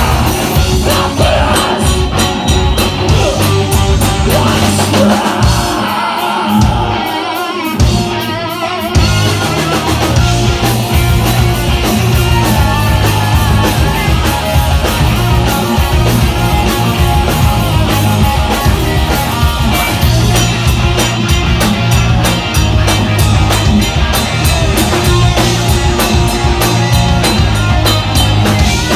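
Live rock band playing loud: electric guitars, drum kit and a singer. About six seconds in the drums and low end drop out for about two seconds, then the full band comes back in.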